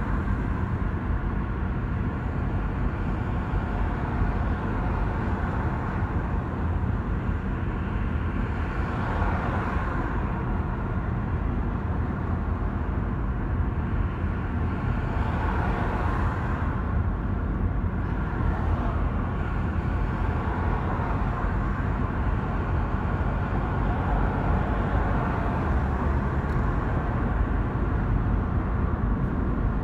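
Steady road noise of a car driving: a low rumble of engine and tyres, with a hiss that swells twice.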